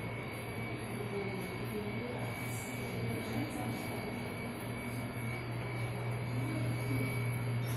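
Steady low room hum of an indoor gallery, with faint, distant voices of other people now and then.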